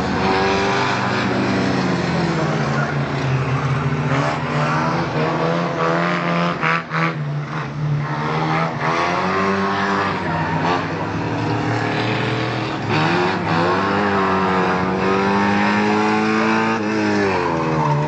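Several race car engines running hard around a figure-eight track, overlapping, their pitch repeatedly rising and falling as they rev up and back off.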